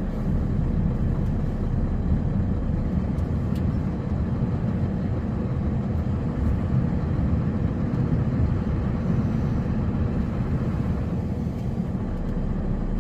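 Snow-plow truck's engine running steadily, a continuous low drone with a faint steady hum above it.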